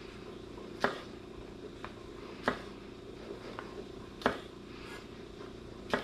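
Chef's knife slicing sugar snap peas on a wooden cutting board: a sharp knock each time the blade meets the board, four louder ones about every second and a half to two seconds with lighter taps between.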